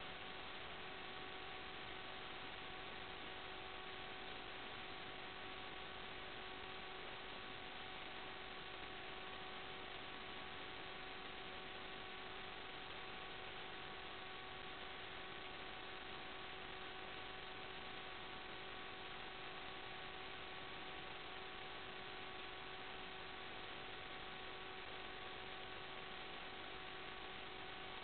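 Steady static hiss with a faint, even buzz underneath, unchanging throughout: the noise of an analog FPV video link's audio channel, with no motor or wind heard.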